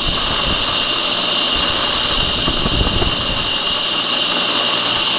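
Craftsman 113.29900 belt-drive table saw running at speed, a steady whir with wobbly vibration underneath. The vibration comes from a bent cast motor pulley that wobbles as it turns, though it is not as bad as it was.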